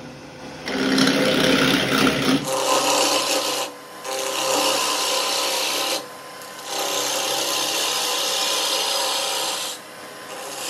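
Gouge cutting a spinning wood blank on a lathe: a steady scraping hiss in several passes, breaking off briefly about four, six and ten seconds in as the tool comes off the wood.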